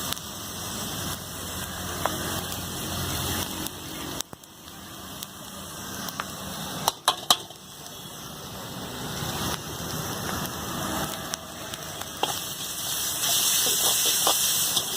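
Steady hiss of food frying at a street stall, with a few sharp clicks near the middle.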